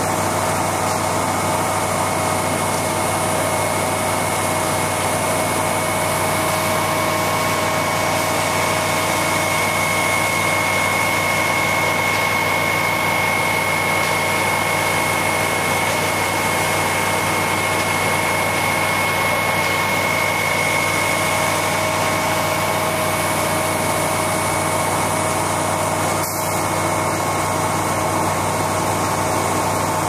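Heavy truck engines of a concrete pump truck and a ready-mix mixer truck running steadily while concrete is pumped, with a steady high whine over the engine noise.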